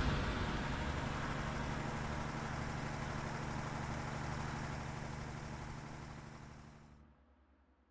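Low, steady drone of a bus engine as the bus drives past, fading out about seven seconds in.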